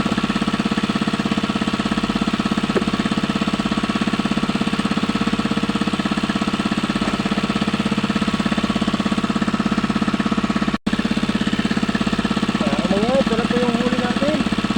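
Small engine running steadily at an even idle-like speed, with a rapid regular chugging and a strong hum; it cuts out for an instant about eleven seconds in.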